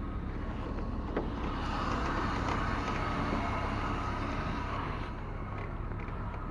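Car engine running steadily, with a faint click about a second in.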